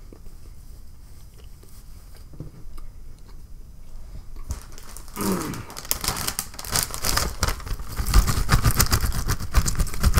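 A crinkly potato-chip bag being handled, its rustle setting in about halfway through and growing louder, then kettle-cooked potato chips poured from it onto a wooden board near the end.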